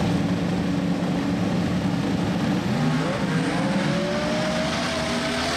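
Drag race cars' engines idling steadily, then about two and a half seconds in an engine's pitch climbs smoothly and keeps rising as the car accelerates hard.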